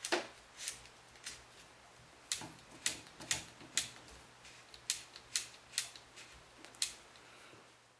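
About a dozen sharp clicks and taps at irregular intervals, from rifle-stock parts and tools being handled during the stock fitting.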